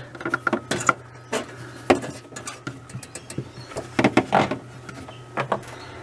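Irregular clicks, taps and short scrapes of hands working on the defrost heater's wiring and plastic parts inside a fridge-freezer compartment, over a faint steady low hum.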